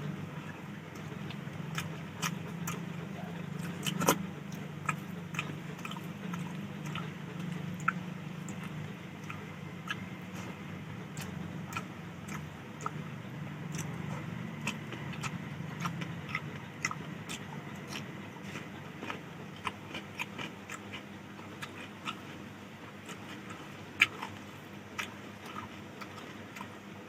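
Close-up mouth sounds of someone eating rice with fish curry: chewing with frequent wet smacks and sharp clicks, a couple of them much louder, over a low steady hum that fades in the second half.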